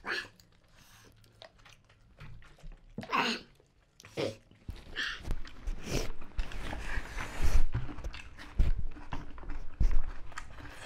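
Eating with the hands: biting and chewing on chicken drumsticks, with rice and curry squished and mixed by hand on a banana leaf. Sparse at first, busier and louder in the second half, with a few soft thumps.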